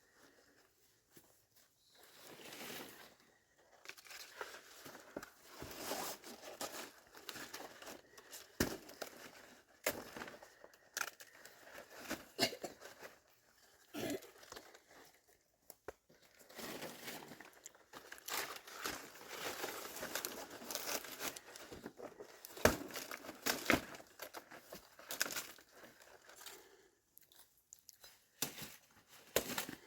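Packaging being handled: irregular crinkling and rustling, with occasional sharp clicks and knocks.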